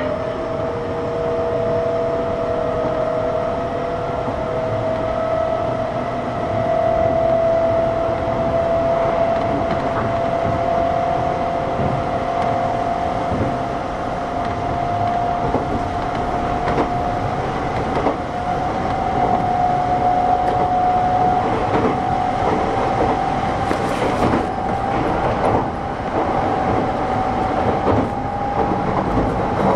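Kintetsu 6620 series electric train running, heard from inside the car. A whining tone slowly rises in pitch as the train gathers speed, over the rumble of wheels on rail, with a few sharp rail-joint clicks about 24 seconds in.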